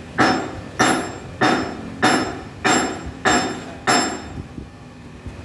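Steady hand hammering: seven blows at a little under two a second, each with a short ring, stopping about four seconds in.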